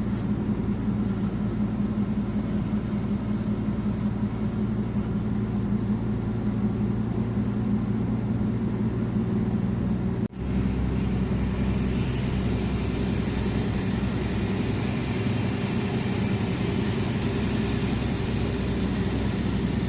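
Truck engine and road noise heard inside the cab while driving: a steady low drone. It cuts out for an instant about halfway, then carries on with a little more hiss.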